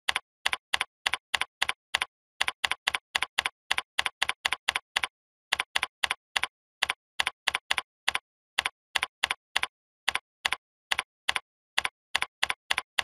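Computer keyboard keystrokes clicking at a steady pace of about three a second, broken by a few short pauses, as text and numbers are typed into form fields. Each click is alike, with dead silence between them.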